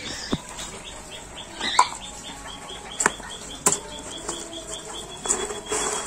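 A few sharp clicks and knocks from handling a metal tin of pig-feed pellets, then a rustling rattle near the end as a hand scoops the pellets. Behind it runs a high, regular chirping, several a second, that becomes one continuous trill about two-thirds of the way in.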